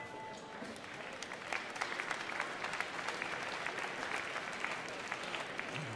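Boxing arena crowd applauding and clapping at the end of a round. The clapping grows fuller after about a second and a half.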